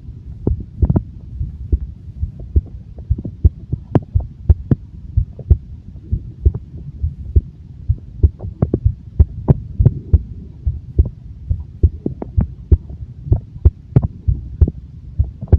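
A human heartbeat picked up close on the body: a steady run of short, low thumps, about two a second, over a continuous low hum.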